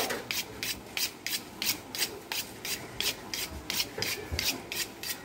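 A knife being sharpened against a hand-held sharpening rod: quick, even scraping strokes, about three a second.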